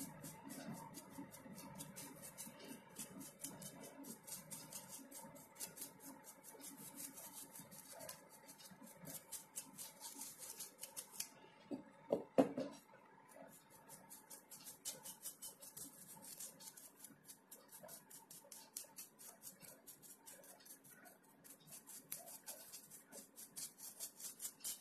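Paintbrush dry-brushing acrylic paint onto a clay figurine, a faint rapid scratching of bristles in quick short strokes. The scratching pauses a little before the middle, where a single brief knock is heard.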